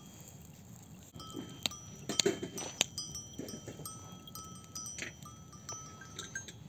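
Small livestock bells on sheep and goats clinking and ringing on and off, with a few sharp metallic clanks, loudest between two and three seconds in.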